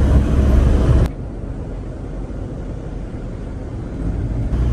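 Driving rumble of an Iveco-chassis motorhome with a 3.0-litre diesel, engine and road noise, on an ordinary road. It drops sharply about a second in and builds back near the end. No abnormal noise stands out, which is what this road test is checking for.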